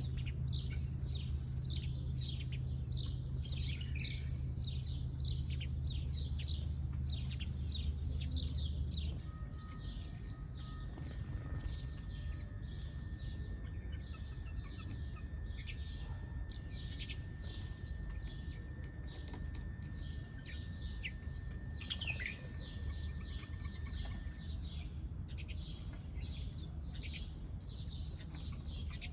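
Many sparrows chirping in a dense, continuous chorus of short, rapid chirps. A low hum underneath stops about a third of the way in. A thin, steady high tone runs under the chirps through the middle and stops a few seconds before the end.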